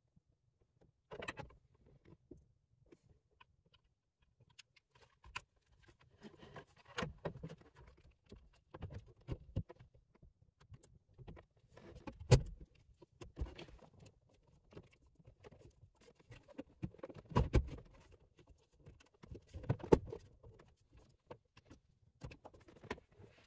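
Hands fitting a stereo head unit into a BMW Z4's dashboard: scattered clicks, knocks and rattles of plastic, metal casing and wiring connectors, with a few sharper knocks about halfway through and near the end.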